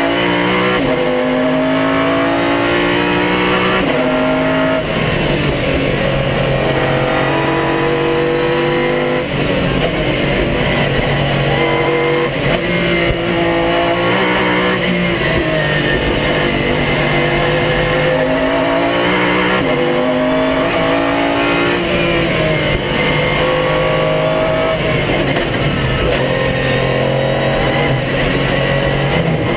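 Pagani Zonda R's Mercedes-AMG V12 heard from inside the race car's cockpit, pulling hard at full throttle. The pitch climbs and drops abruptly again and again with each gearshift, and the engine eases off and picks up again for the corners.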